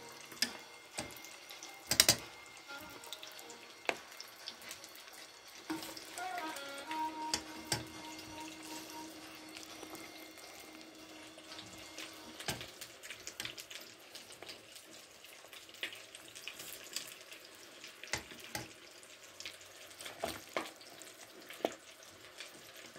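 Hot oil sizzling as rice-cake batter deep-fries, with irregular sharp pops and crackles. A steady tone runs from about six seconds in to about halfway.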